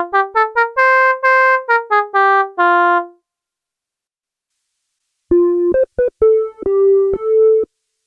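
Arturia Analog Lab V's '47 Oboe' woodwind preset plays a quick run of about ten notes that climbs and then falls back. After about two seconds of silence, the '54 Reed' preset plays a shorter phrase of about seven notes.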